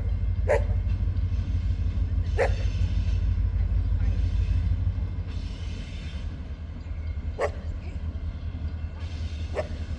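A dog barking with single sharp barks every couple of seconds, five in all, over the steady low rumble of a passing train, which eases about halfway through.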